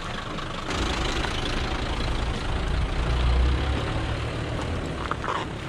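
Engine of a military off-road vehicle running as it rolls slowly past at close range; the low engine sound swells about a second in, is loudest around three seconds in, then eases off.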